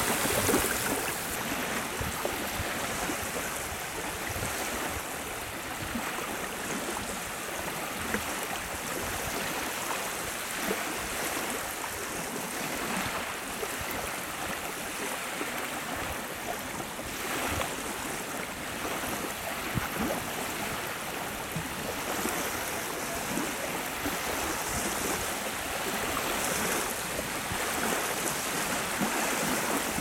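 Small wind-driven river waves lapping and washing onto a sandy shore, a steady wash of water.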